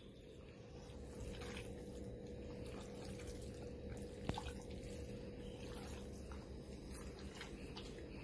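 Faint wet squelching of a hand mixing raw chicken pieces through a vinegar, garlic and spice marinade, with a few small clicks, over a steady low hum.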